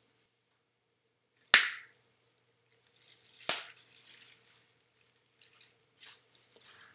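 Bubble wrap being popped by a child's fingers: two sharp pops, about one and a half and three and a half seconds in, with fainter crackling of the plastic between and after them.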